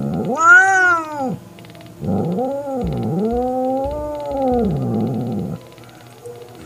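Mother cat yowling in warning: one drawn-out call that rises and falls, then after a short pause a longer wavering one, threatening the other cat away from her kitten.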